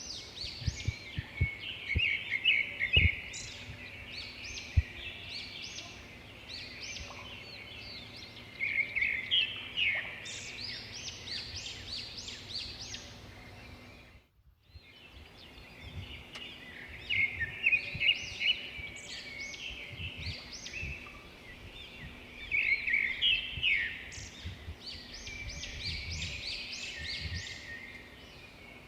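A songbird singing in bouts of fast, chirpy phrases, with pauses between them and a short break in the middle.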